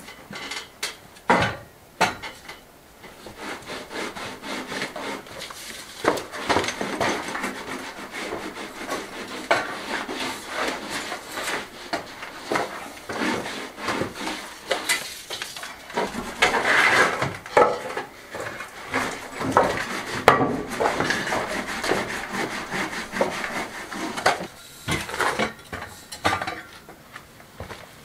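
Wooden ceiling beams being scrubbed and wiped by hand during acid cleaning: irregular rubbing and scraping on the wood, with scattered knocks and clicks.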